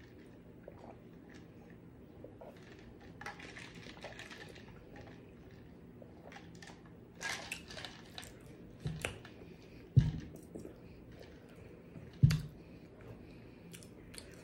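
Faint sipping and swallowing from a plastic straw tumbler, then two sharp knocks about two seconds apart as the tumbler is set down on the table.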